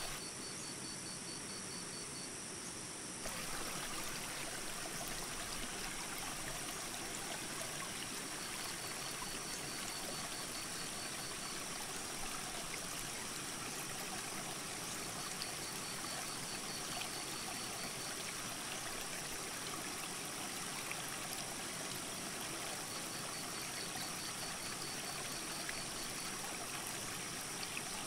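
Mountain creek rushing steadily over rocks. A short run of high, evenly spaced chirps, about four a second, recurs roughly every seven seconds.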